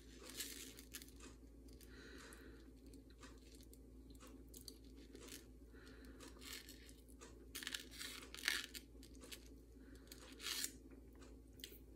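Faint, scattered rustles and small clicks of fingers handling a thin necklace chain and its clasp, a few louder ones near the end, over a low steady hum.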